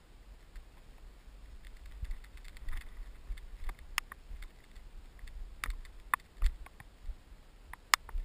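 Irregular sharp clicks and taps close to the camera, about a dozen, the loudest in the second half, over a steady low rumble.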